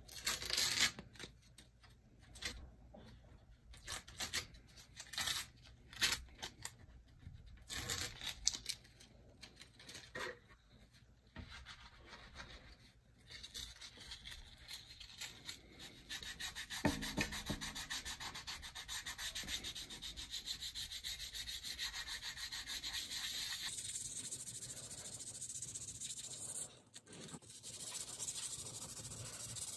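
Hand sanding on a pinball playfield, a sanding block rubbed over the filled wood around the inserts to level it flush. The first half is separate short strokes; about halfway in it turns into steady, continuous rapid sanding.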